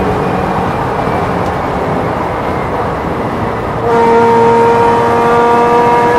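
Porsche race car heard from inside the car: wind and road noise with a quieter engine while it slows for a corner. About four seconds in, the engine comes back on the throttle with a sudden, louder, steady note.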